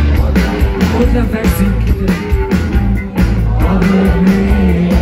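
Rock band playing live on an open-air festival stage, heard from the audience through the PA: loud drums, heavy bass and electric guitars.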